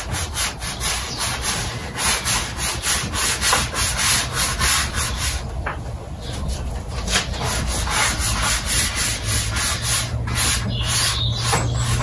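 Paintbrush scrubbing powder paint onto a large sheet of paper in quick back-and-forth strokes, about three or four a second, easing briefly about halfway through.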